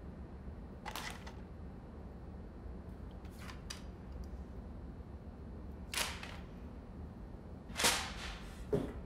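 Things being handled and rummaged in a cardboard box: several short knocks and rustles, the loudest about eight seconds in, over a low steady hum.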